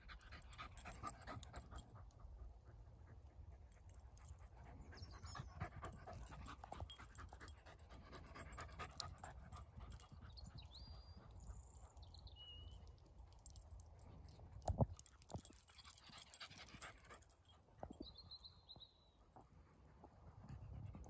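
Faint panting of a dog, with a few brief high chirps and a steady low rumble.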